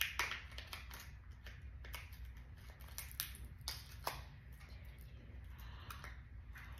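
Scattered light clicks and rustles of hands handling a small plastic toy, over a steady low hum.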